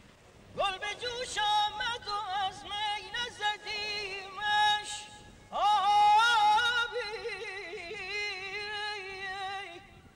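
A solo voice singing Persian classical vocal music in two long phrases separated by a short break, with rapid warbling ornaments on the held notes.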